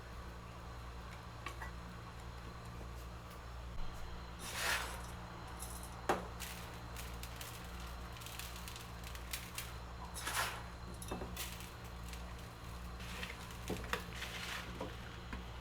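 Kitchen food-preparation handling sounds: a few soft swishes and scattered light clicks of utensils and dishes over a steady low hum.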